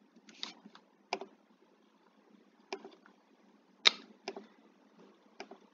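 Computer mouse buttons clicking, about eight short sharp clicks at irregular intervals, the loudest about four seconds in, as points are picked in a geometry program.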